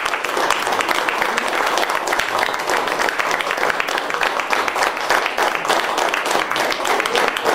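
A small group of people clapping steadily, with voices mixed in.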